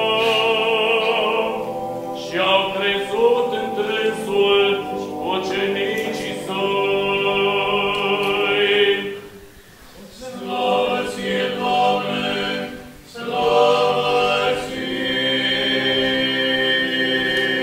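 Orthodox liturgical chant sung by several voices in long, held phrases, with two short breaks in the middle.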